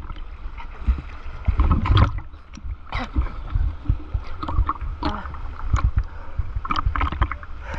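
River water sloshing and splashing right at the microphone, with irregular splashes and gurgles as the camera bobs at the surface, over a heavy low rumble of water buffeting the housing.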